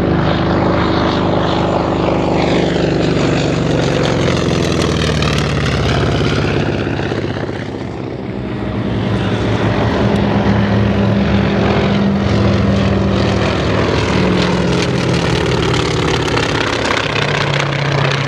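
Radial-engined propeller warbirds flying past low, one after another. The engine drone falls in pitch and eases about eight seconds in as one plane passes, then the hum of a twin-engined plane builds again.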